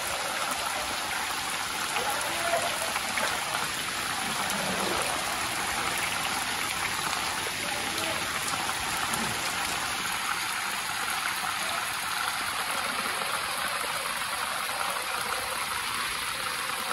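Heavy rain pouring steadily onto floodwater, a dense even hiss of drops on the water's surface.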